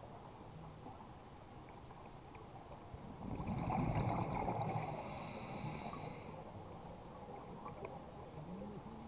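Muffled underwater sound from a scuba diver's regulator: one breath of bubbles gurgling out, with a hiss, from about three to six seconds in, over a steady low underwater murmur.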